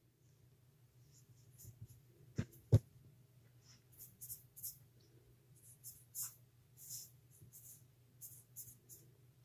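Faint scratching and light ticking of a sculpting tool working polymer clay, with two short knocks about two and a half seconds in, over a faint low hum.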